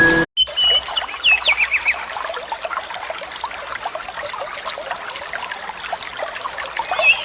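Outdoor nature sound: birds chirping, with a quick falling run of notes early and a thin high trill held for about a second in the middle, over a dense patter of short sounds from water or small creatures.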